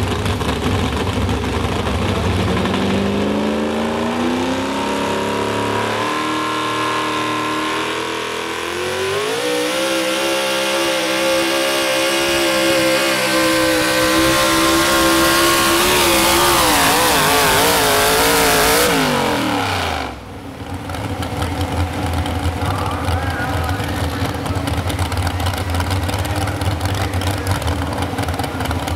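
Modified 4x4 pulling truck's engine on open exhaust stacks revving up as the truck launches, then held at high revs under full load. Near the end of the run the pitch wobbles and falls away steeply, and the engine settles to idle once the truck stops.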